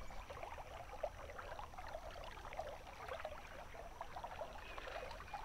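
Faint trickle of shallow creek water running over a gravel bed, a busy, irregular patter of tiny splashes and plips.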